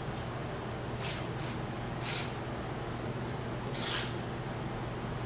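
Aerosol can of white lithium grease sprayed through its straw onto garage door rollers, in four short hissing squirts, the last two longer.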